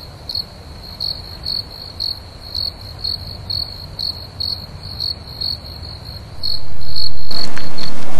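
Crickets chirping in a steady rhythm, about two chirps a second. Near the end a much louder steady noise swells in and covers them.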